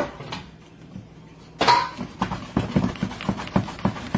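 A spoon clinking and scraping against a mixing bowl as thick sweet potato pudding batter is scraped out into the baking pan. A sharp clink with a brief ring comes about a second and a half in, then quick repeated scraping strokes, about four a second.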